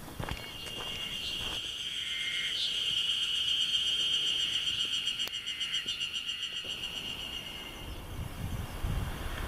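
Haruzemi (spring cicada) singing: a steady, rapidly pulsing buzz that swells and then fades over several seconds.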